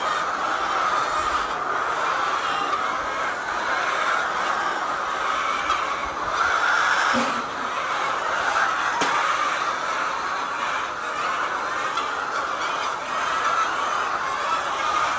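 A large flock of laying hens making a steady, dense din of overlapping calls.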